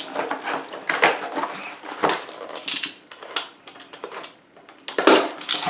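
Stainless steel knives and kitchen shears clinking and knocking together as they are handled and taken out of their packaging: a string of irregular sharp clicks, a few with a brief metallic ring, the loudest about five seconds in.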